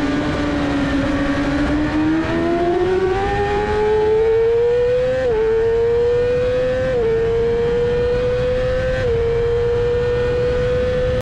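Supersport racing motorcycle engine under full throttle, heard from onboard with wind rushing past. It climbs in pitch out of a corner, then upshifts three times: each shift is a brief drop in pitch before the note climbs again.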